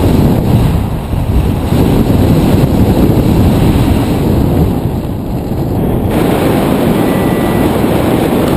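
Wind buffeting the microphone of a camera on a paraglider pilot in flight: a loud, steady noise, deep and mostly low in pitch.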